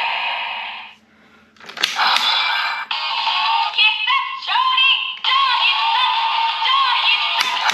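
Tinny electronic sound effects and a synthesized voice-and-music jingle from a DX Memorial Vistamp toy's small built-in speaker. A hissing effect cuts off about a second in, and after a short quiet a click sets off the pitched jingle, which runs on to the end.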